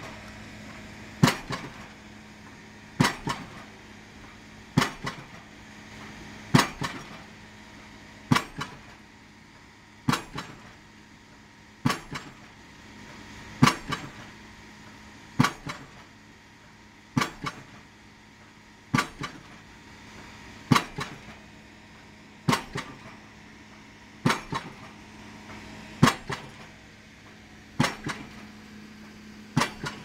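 A 7-tonne hydraulic impact hammer drives a 500 mm PHC prestressed concrete pile, landing heavy blows at an even pace of about one every 1.8 seconds. Each blow is followed by a lighter second knock, over the steady hum of the piling rig's engine.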